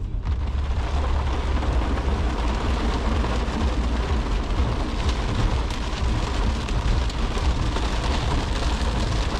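Heavy rain drumming on the car's roof and windshield, heard from inside the cabin as a dense steady hiss over a low rumble. It starts suddenly just after the beginning.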